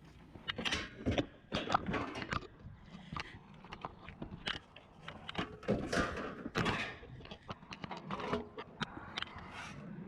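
Irregular knocks and clanks of light aluminum bed-frame rails being handled and loaded, with a quick run of rattles and bumps.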